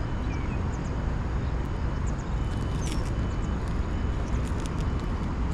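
Steady low rumble of wind on the microphone, with a few faint high bird chirps and scattered clicks.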